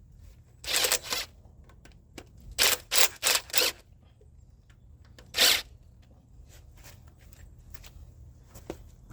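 Short rasping bursts of tool work on a 454 V8 being taken apart: one about a second in, a quick run of four about three seconds in, and one more about halfway through.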